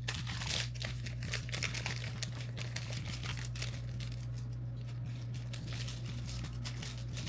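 Crinkling and rustling of a bag or wrapping being handled, many irregular crackles, over a steady low hum.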